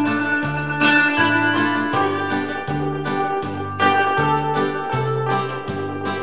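Instrumental background music with a steady, repeating bass line under keyboard chords.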